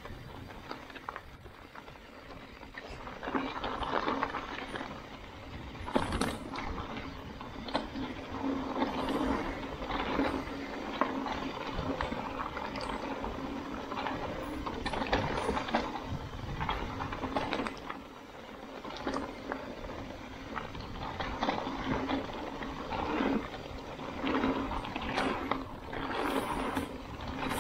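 Mountain bike descending a rocky singletrack: tyres running over dirt and rock with frequent knocks and rattles from the bike, and the rear hub's ratchet clicking while coasting.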